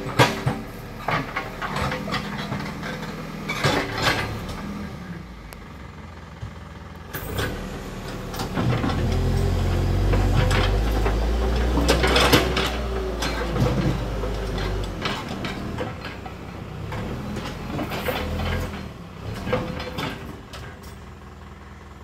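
Bull backhoe loader's diesel engine running, working harder with a louder low rumble from about nine to fifteen seconds in as the backhoe arm and bucket work the soil. Scattered clanks and knocks from the backhoe bucket and arm sound over the engine.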